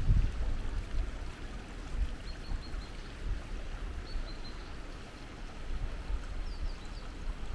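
Water of a small river flowing, a steady rush with a low rumble underneath. A small bird chirps in short runs of three or four quick notes, three times.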